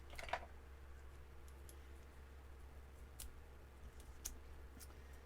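Faint light clicks and a brief rustle about a third of a second in, from hands handling a paper card panel and foam adhesive dimensionals on a craft table, over a low steady hum.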